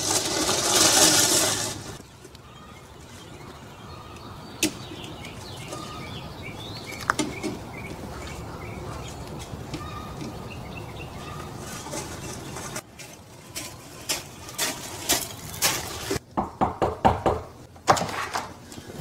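Scooter tyres crunching over gravel for the first couple of seconds, then quiet outdoor ambience with faint birds chirping. Near the end comes a run of knocks and thumps.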